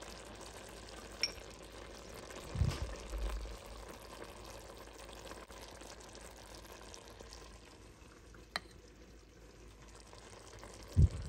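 Hot cream sauce gently sizzling and bubbling in a cast-iron pot as braised chicken legs are lifted out with a metal spoon, which clicks against the pot a couple of times. There are two dull thumps, the louder one near the end.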